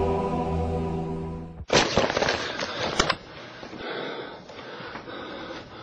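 Sustained background music that cuts off abruptly, followed by about a second and a half of loud crackling and clicking. Then a quieter, noisy home-video sound bed with a few scattered knocks.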